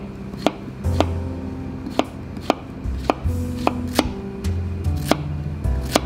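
Chef's knife slicing a zucchini into thick rounds, each cut ending in a sharp knock of the blade on a plastic cutting board. There are about ten knocks at an uneven pace, half a second to a second apart.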